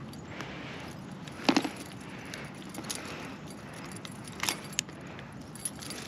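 Sharp metallic clicks and clinks of metal fishing tackle being handled while a caught pike is unhooked, the loudest about a second and a half in and two more a little before the end, over a faint steady hiss.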